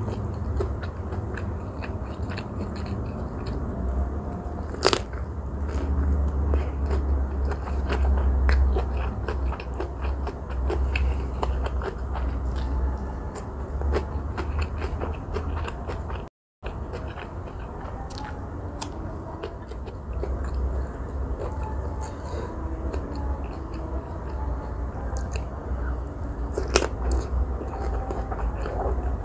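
Close-up crunching and chewing of raw cucumber and carrot sticks with shrimp, steady mouth sounds broken by small sharp crunches and a few louder bites.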